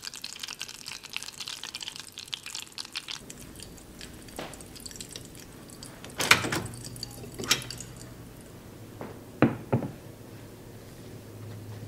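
Butter foaming and crackling as it browns in a glass saucepan, stirred with a silicone spatula. The crackle stops abruptly about three seconds in. A few sharp clicks follow, the loudest about halfway through and near the end.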